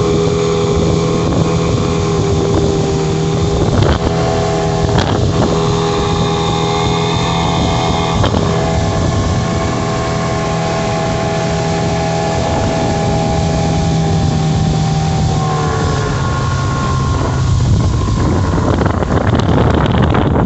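Mariner 15 HP outboard motor running at a steady cruising speed, pushing the boat, with the wake rushing and wind on the microphone. A few sharp knocks sound in the first half. The engine note drops slightly about sixteen seconds in, and the wind and water noise grows louder near the end.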